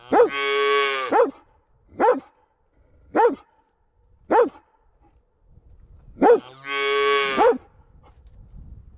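A calf calling: two drawn-out moos, one at the start and one near the end, with four short calls between them.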